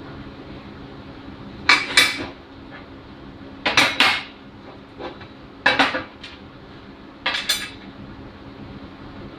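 Lengths of steel tube knocking against a steel welding table as they are handled and set in place: about four pairs of sharp metallic clanks, roughly two seconds apart.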